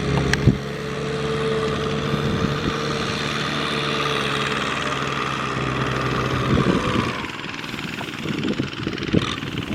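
Diesel tractor engine running steadily, then easing off about seven seconds in, followed by scattered knocks and clatter. A sharp click about half a second in.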